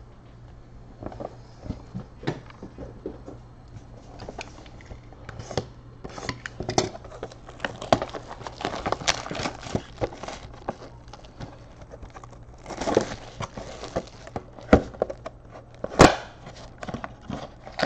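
Hands tearing the plastic wrap and cardboard off a sealed box of trading cards: irregular crinkling, tearing and clicks, with a denser stretch of crinkling about two-thirds through and a sharp click near the end.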